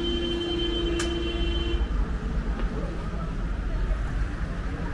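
A vehicle horn held on one steady note that cuts off about two seconds in, over the low rumble of street traffic.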